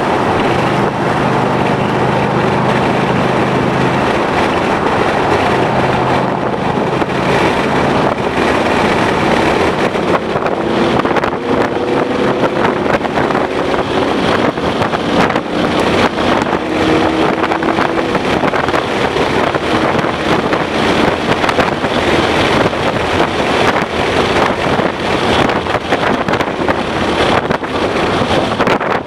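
2011 Ford Mustang GT's 5.0-litre V8 running hard at speed, mixed with heavy wind and road noise; the engine note climbs in pitch under acceleration around the middle.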